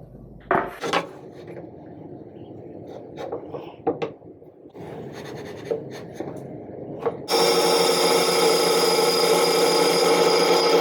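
Wood pieces being handled and rubbed, with a few light knocks. About seven seconds in, a bandsaw is switched on and its motor runs steadily and loudly.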